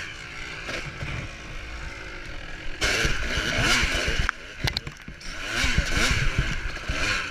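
Dirt bike engine revving hard again and again, pitch rising and falling, as the bike ploughs through deep mud. The loudest bursts come about three seconds in and again around six seconds.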